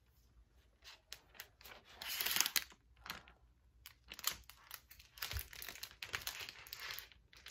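Packaging paper and protective wrap rustling and crinkling as a new laptop is pulled out of its wrapping, in a string of short crackling rustles with the loudest stretch about two seconds in.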